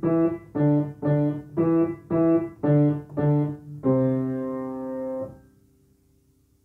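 Yamaha piano played with both hands: a simple nursery-song melody of short notes, about two a second, ending on a held C chord that is released about five seconds in.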